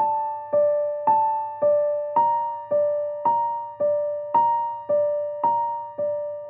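Background keyboard music: a soft electric-piano-like two-note chord struck about twice a second, each strike fading away before the next.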